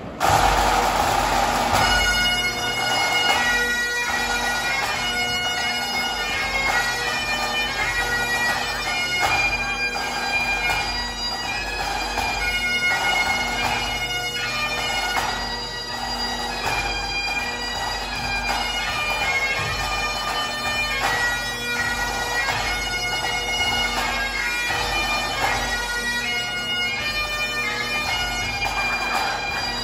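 A pipe band's Highland bagpipes playing a tune together over steady drones, striking in abruptly right at the beginning.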